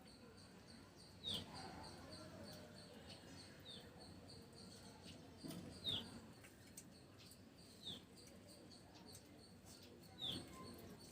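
A small bird calling, a single short chirp that drops in pitch, repeated five times about every two seconds over faint background noise.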